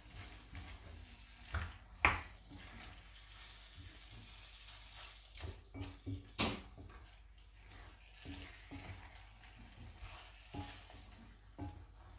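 A wooden spoon stirring pork chunks in a thick sauce in an enamelled cast-iron pot. The spoon knocks and scrapes against the pot irregularly, with a faint sizzle underneath; the loudest knocks come about 2 and 6½ seconds in.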